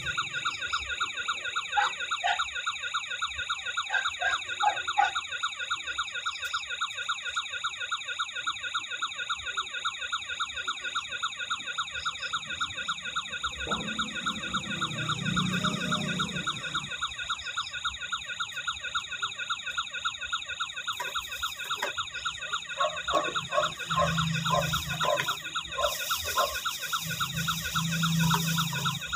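Electronic siren from a toy remote-control truck's light-and-sound unit, sounding without a break as a fast repeating warble over a steady high tone. Low rumbling comes in briefly about halfway through and again near the end.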